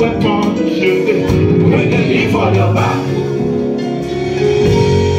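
Live music played through a PA: a male lead singer with backing vocalists singing over amplified instrumental accompaniment, steady and loud.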